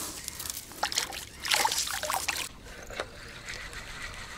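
Water splashing and trickling, with irregular knocks and clicks, cutting off abruptly about two and a half seconds in and leaving a quieter steady background.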